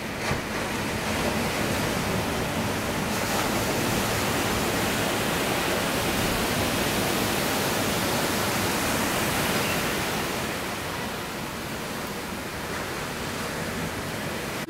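Ocean surf: breaking waves and whitewater wash as a steady rushing noise that swells after the first second or so and eases off about ten seconds in.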